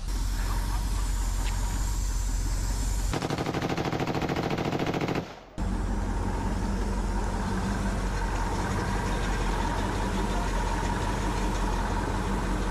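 Russian military cargo truck's engine running steadily while the truck sits stopped. There is a brief dropout about five seconds in.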